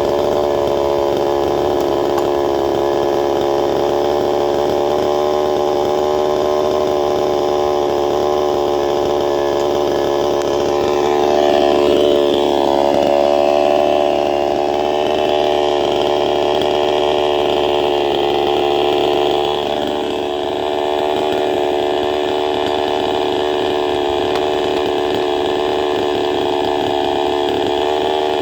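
Chainsaw running at high revs while cutting into a wooden log; about twelve seconds in, its pitch dips and recovers as the chain bites deeper.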